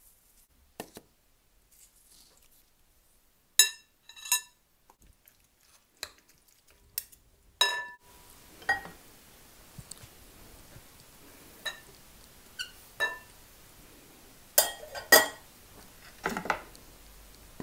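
Metal spoon clinking against a glass mixing bowl: about ten short, ringing clinks scattered unevenly, the loudest in pairs around four seconds in, near eight seconds and near fifteen seconds.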